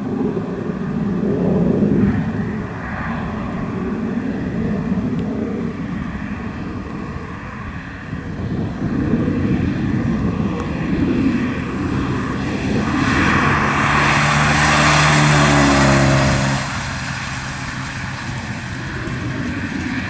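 1982 Porsche 924's 2.0-litre four-cylinder engine through a Dansk exhaust, the car driving up and passing by. The engine note builds as it approaches, is loudest for a few seconds in the second half, then drops off suddenly as it goes past and away.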